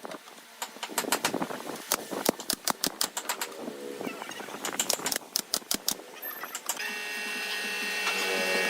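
Irregular sharp clicks and knocks of wood being worked. About seven seconds in, an electric power tool starts running with a steady whine that slowly gets louder.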